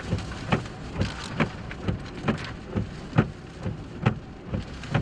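Heavy rain drumming on a vehicle in a tornado-producing thunderstorm, with a regular knock about twice a second.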